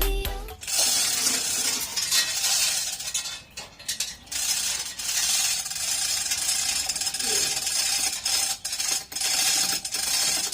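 Manual 1-ton chain hoist being worked: its chain rattling through the block and the ratchet clicking, with short breaks between pulls.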